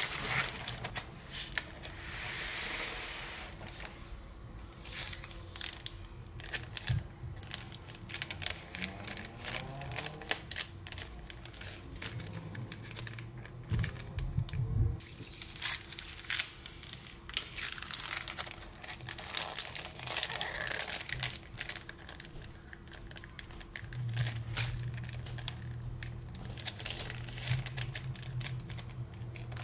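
Clear plastic and cellophane packaging crinkling and rustling as it is unwrapped and handled, in a dense run of irregular crackles.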